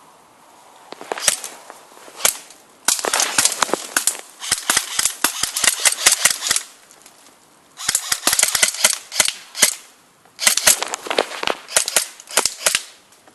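Airsoft guns firing: two single shots, then three long runs of rapid shots with short pauses between them.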